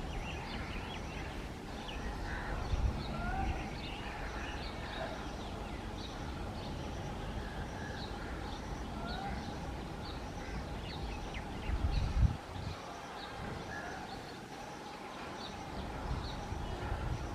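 Birds chirping and calling throughout over a steady low rumble, with a brief loud low thump about twelve seconds in.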